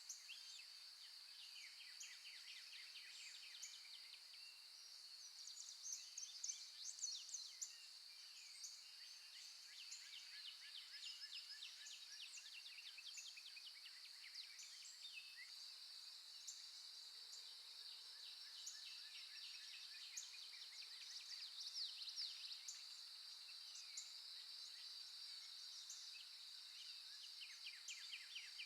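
Faint birdsong: several birds giving rapid chirps and trills, over a steady high-pitched hiss.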